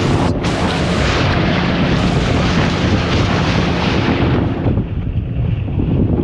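Small passenger boat under way: the engine drones while wind buffets the microphone. The wind hiss eases about four and a half seconds in.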